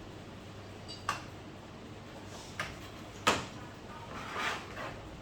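Three sharp clicks or knocks of handled parts and tools, the third the loudest, followed by a short rustle, over a low steady hum.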